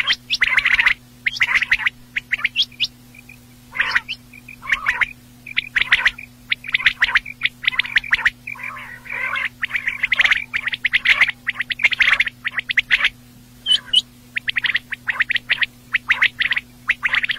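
Quail calling: short bursts of rapid chattering notes, repeated again and again with brief pauses between them, over a faint steady hum.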